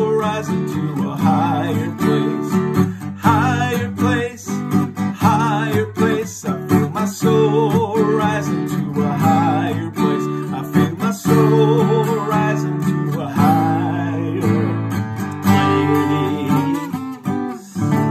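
Steel-string acoustic guitar strummed steadily in a folk rhythm, with a man's voice carrying the melody wordlessly over it in short phrases.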